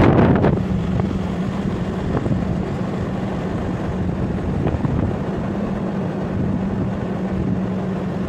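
Car driving along a road, heard from inside: steady engine and road noise with a constant low hum. A gust of wind buffets the microphone right at the start.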